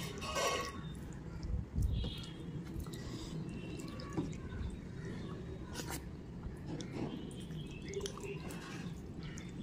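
Wet eating sounds: chewing and lip-smacking on soft khichdi, with fingers squishing and mixing the rice on a steel plate, giving scattered clicks and smacks. A low thump about two seconds in is the loudest sound.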